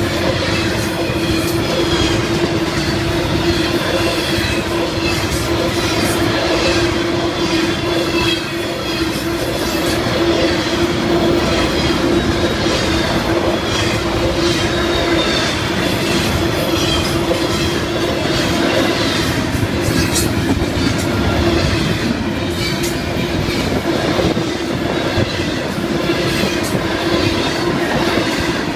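Freight train's intermodal and freight cars rolling past: a steady wheel-on-rail rumble with rapid clicking over rail joints and a steady ringing squeal from the wheels.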